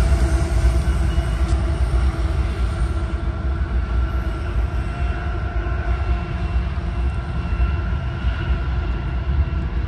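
Freight cars of a manifest train rolling past on the rail: a steady low rumble with a steady whine above it, easing a little in the first few seconds.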